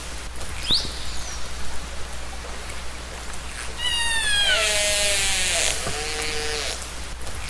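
Killer whale calls recorded underwater: a short rising whistle about a second in, then near the middle a falling call with many overtones, followed by lower, bending calls, over a steady background hiss.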